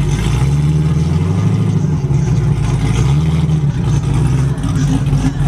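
C6 Corvette's V8 running at low revs with a deep, steady exhaust note as the car creeps past, the pitch shifting slightly a couple of times.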